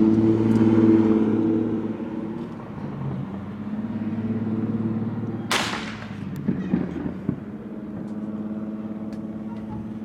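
A car engine running steadily, louder over the first two seconds, with a single sharp bang about five and a half seconds in followed by a few smaller pops.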